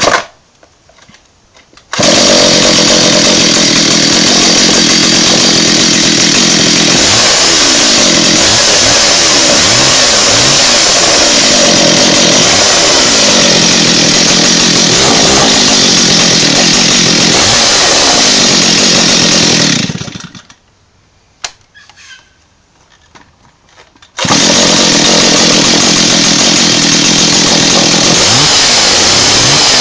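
Stihl 034 two-stroke chainsaw running loud at high speed, its pitch repeatedly dipping and recovering. It stops for about four seconds two-thirds of the way through, with one sharp click in the gap, then runs again.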